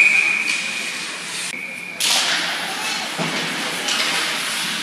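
Referee's whistle blown in one long, steady blast of about two seconds, then sharp knocks and clatter of sticks and puck over the noise of the rink.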